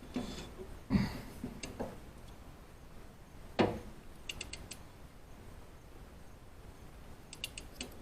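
Hand tools being worked on an engine: a few separate metal knocks, the loudest about a second in and another past three and a half seconds, and two short runs of quick ratchet clicks, one about four seconds in and one near the end.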